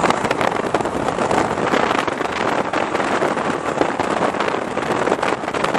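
Wind rushing and buffeting against the microphone with the steady road noise of a car driving at highway speed.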